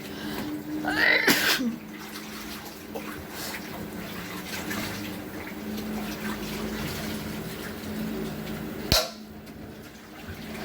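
Washing machine running a wash cycle: water sloshing and running inside the drum over a steady low motor hum. A brief louder noise comes about a second in, and a sharp click near the end.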